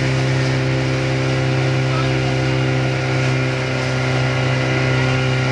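Small motorboat's engine running at a steady cruising speed, a constant low drone with overtones, over the rush of water and spray along the hull.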